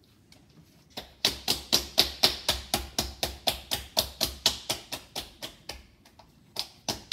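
Hands quickly and evenly slapping a filled pig's stomach, about four slaps a second, with a short pause and a few more near the end: the stomach is being pressed so the filling spreads flat through it.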